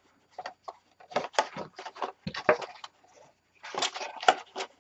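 Stiff white cardstock panels being folded and tucked into place by hand: irregular rustles, scrapes and taps of card, with a brief lull about three seconds in.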